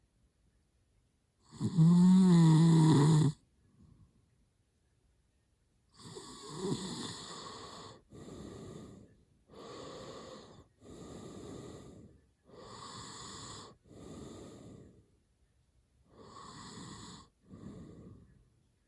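A sleeping man snoring: one loud, pitched snore about two seconds in, then a run of quieter, raspy breaths in and out, each about a second long, with short pauses between them.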